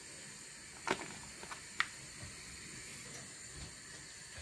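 A table knife cutting butter from its paper wrapper and scraping it onto boiled potatoes in a steel saucepan, giving two small clicks about a second apart, over a steady faint hiss.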